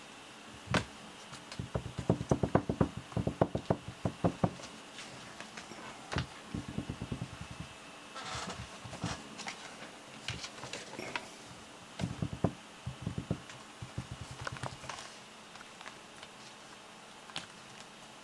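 Close-up handling and movement noise: soft bumps, knocks and rubbing as squirming kittens are moved about on a blanket right by the microphone. There are quick runs of several knocks a second, densest a couple of seconds in and again about twelve seconds in, with rustling between.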